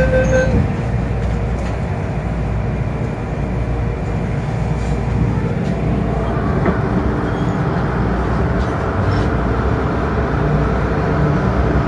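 Hong Kong MTR Kwun Tong line M-train running underground, heard from inside the car: a steady rumble of wheels and running gear as it moves along a station platform. A steady tone stops about half a second in.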